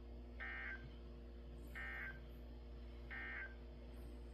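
NOAA Weather Radio's digital SAME end-of-message code played through a weather radio speaker. It comes as three short, buzzy data bursts about a second apart, marking the end of the severe thunderstorm warning broadcast.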